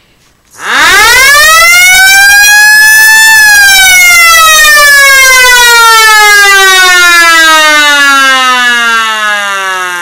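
Small electric motor siren starting up at the press of a push button: a loud wail climbs in pitch for about three seconds, then slowly winds down as the rotor coasts after the button is let go.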